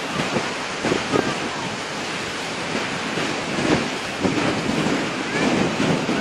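Sea waves washing and breaking, with wind gusting against the microphone.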